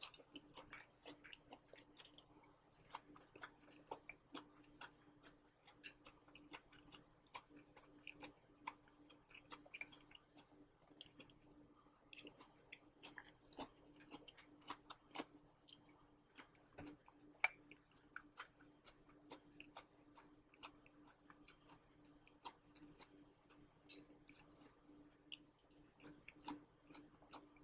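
Faint chewing of dry-fried green beans: a scatter of soft, crunchy clicks, picked up close by a microphone clipped to the eater's shirt.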